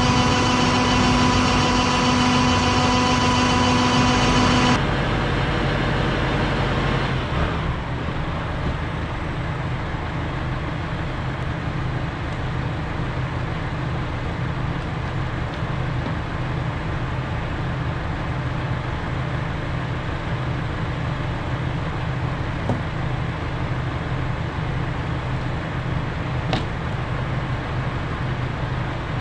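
Electric slurry pump in a liquid-manure pit running with a steady low hum. A louder, higher whine made of several steady tones sounds for about the first five seconds and cuts off suddenly.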